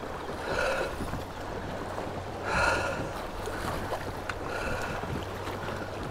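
Stream water running over shoals, with a hooked bass thrashing and splashing at the surface in a few short bursts.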